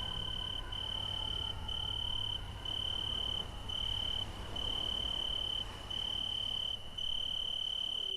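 Crickets chirping: a steady high-pitched trill broken by short gaps about once a second, over a low steady hum.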